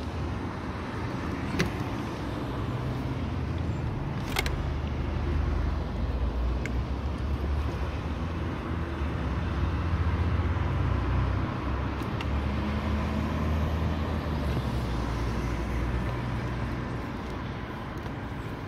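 Low rumble of a vehicle engine running, swelling in the middle and easing off near the end, with three sharp clicks from parts being handled under the hood.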